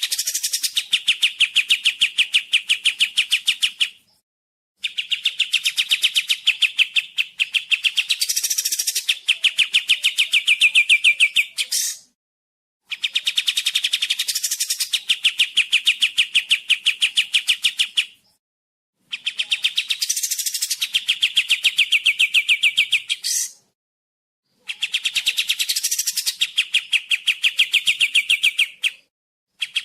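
White-shouldered triller (kapas tembak) singing: bouts of a few seconds of fast, evenly repeated chattering notes, about five bouts with short pauses between them.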